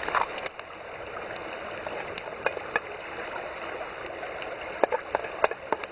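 Wood fire crackling: a handful of sharp pops over a steady rushing hiss.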